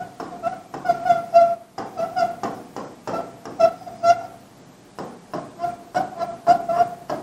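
Marker pen squeaking on a whiteboard as words are written: a string of short squeals of the same pitch, each stroke starting with a light tap, with a short pause about four and a half seconds in.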